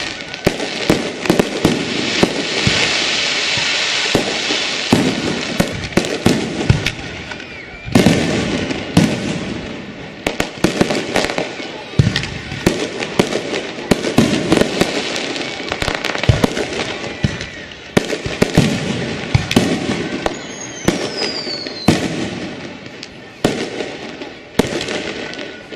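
Fireworks display: a dense run of sharp bangs over continuous crackling, with a short descending whistle about twenty seconds in.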